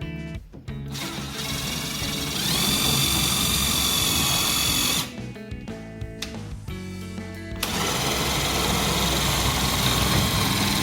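A handheld power tool's motor runs twice, with background music throughout. It spins up to a steady high whine over the first couple of seconds, stops about five seconds in, and starts again nearly three seconds later.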